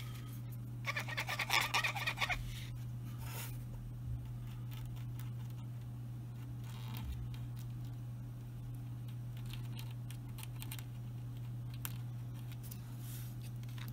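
Paper crinkling as a folded paper packet is handled, for about a second and a half starting about a second in. After it come faint light scratches and taps of a toothpick spreading glue on the adapter ring, over a steady low hum.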